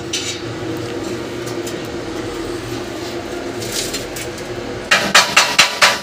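A steady background hum, then about five seconds in a quick run of sharp metal-on-metal strikes, about five a second, like a hammer on the iron cage frame.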